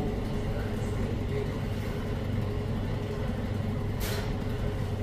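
A steady low mechanical hum with a faint steady tone above it, and a brief hiss about four seconds in.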